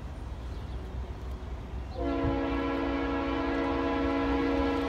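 Locomotive air horn sounding one long steady blast, a chord of several notes, starting about two seconds in over a low rumble.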